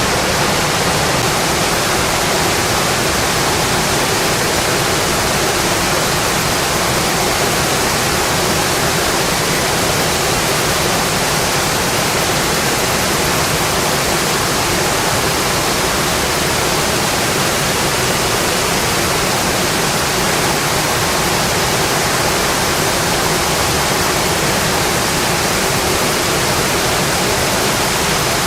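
Steady, even rain noise, a dense hiss with no separate drops or thunder standing out.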